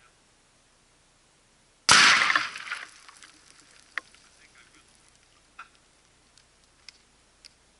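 A single loud explosion out on the range, one sudden blast about two seconds in that dies away over about a second. A few faint sharp ticks and pops follow.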